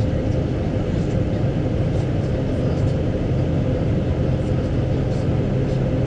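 Steady diesel engine drone inside a tractor cab, heard while a combine harvester runs alongside.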